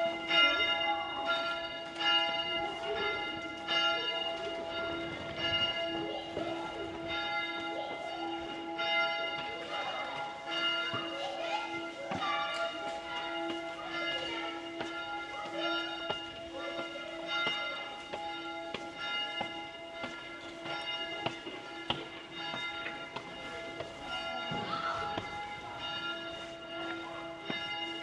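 Church bells ringing, struck about once a second, each stroke ringing on under the next so the tones overlap.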